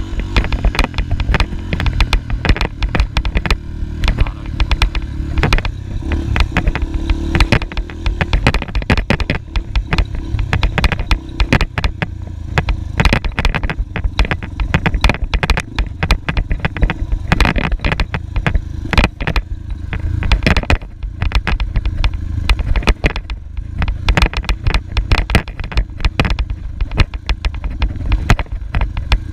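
Dirt bike engine running while it is ridden across bumpy grass, the engine note steady at first and then varying, with frequent knocks and rattles throughout.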